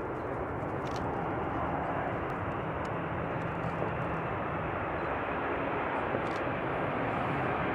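Boeing 747-400 jet airliner's engines running as it touches down and rolls out on the runway: a steady rushing jet noise that grows gradually louder.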